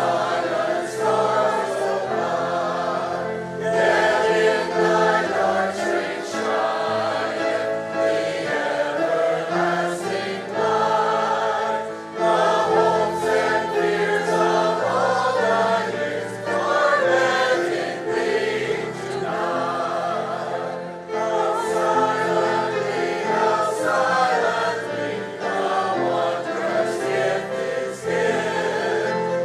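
Church congregation singing a Christmas carol together, phrase after phrase, with short breaks between lines.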